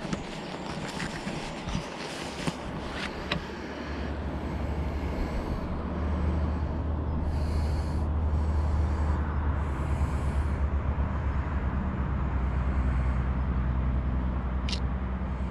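Wind buffeting the microphone: a low, fluttering rumble under a steady hiss that builds a few seconds in and stays. A short sharp click near the end.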